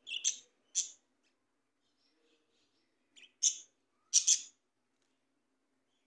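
Budgerigars chirping in short, sharp calls: a couple in the first second, then a quick cluster a little after three seconds in and another just after four.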